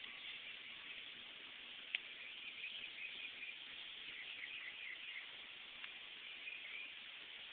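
Faint outdoor ambience of distant birds chirping irregularly, with a single sharp click about two seconds in.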